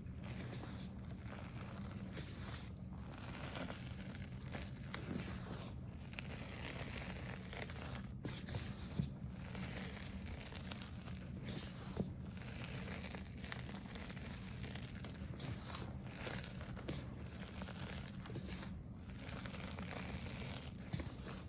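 Hands squeezing and crumbling packed handfuls of powdered gym chalk: a steady crunching, crackling rustle as the chalk breaks apart and pours down, with a couple of sharper crunches about nine and twelve seconds in.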